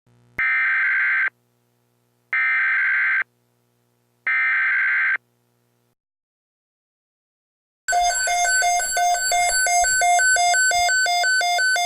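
Three one-second bursts of an Emergency Alert System SAME data header, a buzzy digital screech, come through a Midland weather radio's speaker. About eight seconds in, the radio's own alert alarm starts: rapid, loud alternating beeps, three or four a second, signalling a tornado watch.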